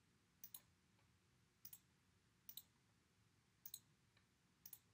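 Faint computer mouse clicks, five quick double clicks spaced about a second apart, over near silence.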